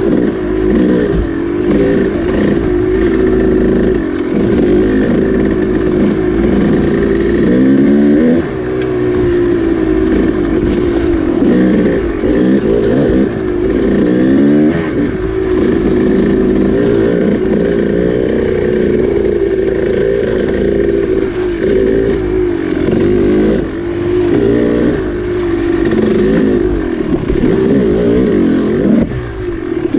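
Dirt bike engine heard up close from the bike, revving up and falling back again and again as the throttle opens and closes, with brief dips in level about eight seconds in and near the end.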